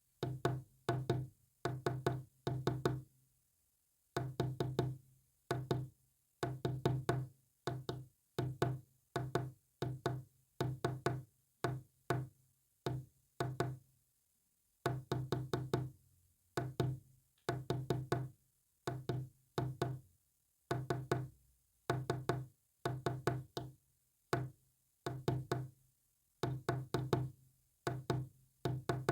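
Morse code keyed as a low, buzzy tone: short groups of dots and dashes separated by brief gaps, with a few longer pauses between words.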